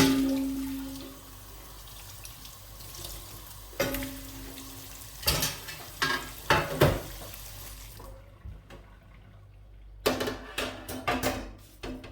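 Greasy metal oven parts being washed in a kitchen sink under a running tap, with sharp clanks of metal that ring on briefly at the start and about four seconds in, a few knocks a second or so later, and a run of clatter near the end.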